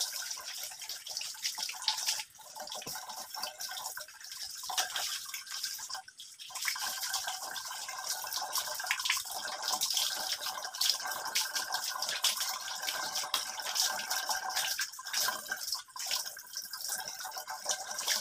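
Tap water running while fish tank accessories are scrubbed with a brush under it, with scrubbing scratches and light clicks of the pieces being handled.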